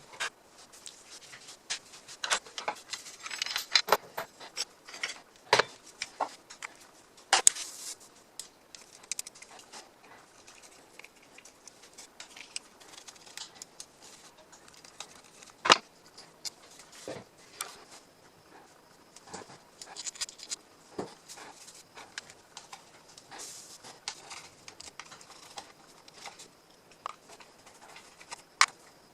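Scattered small clicks, taps and rattles of a cordless angle grinder's plastic housing and screws being handled and taken apart, with a few sharper knocks.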